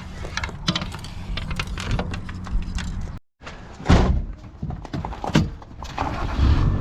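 Clicks, knocks and thuds of gear being handled over a low steady rumble, with two louder thuds in the second half.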